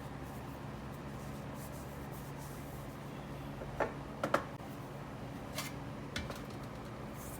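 A handful of short, light clicks and taps, two close together a little after the middle and two more soon after, over a steady low hum.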